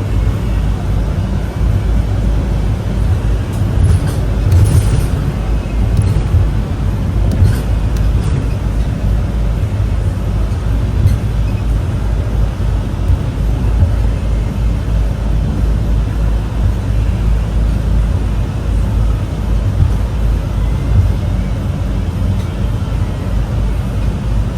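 Steady low engine drone and road noise heard inside a moving vehicle's cab.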